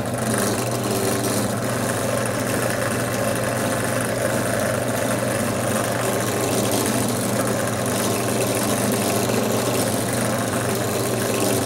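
Benchtop drill press running with a steady hum, spinning a terry-cloth-wrapped dowel that is held against a wooden slingshot fork to polish the CA finish in the center of the fork.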